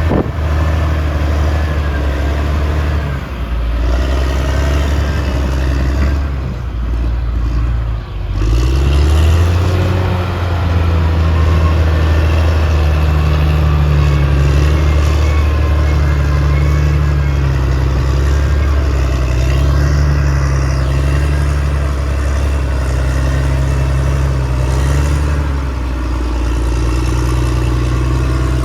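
Caterpillar D6R XL bulldozer's diesel engine working under load. It drops briefly about eight seconds in, picks back up with a rising note, and then runs steadily.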